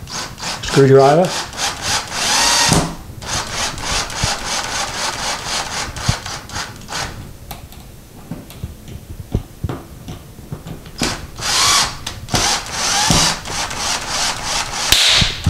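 Cordless drill/driver running in several bursts, driving screws through a metal towel-hook bracket into wall anchors in drywall, with a lull of a few seconds in the middle. The screws are being partially tightened.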